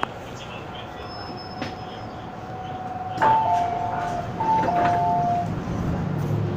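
MTR M-Train subway car running into a station, with a steady whine over the running noise. About three seconds in, the car's on-board chime sounds a falling two-note signal twice.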